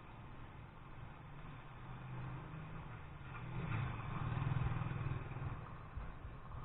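A motor vehicle's engine running, growing louder about three seconds in and easing off near the end.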